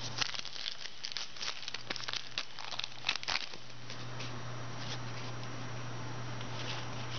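Crinkling of a trading card pack's wrapper being handled and opened, dense for the first three seconds or so and then only the odd crackle, over a steady low hum.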